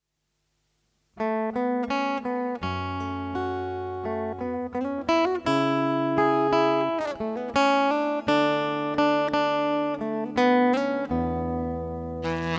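Instrumental song intro: a guitar picking a melody over held bass notes, starting about a second in after silence. A saxophone comes in near the end.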